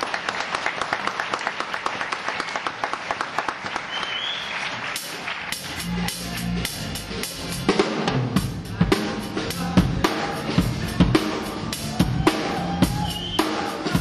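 Acoustic drum kit played live with sticks: a fast run of light, rapid strokes, then about six seconds in the bass drum and toms come in with heavier, louder hits.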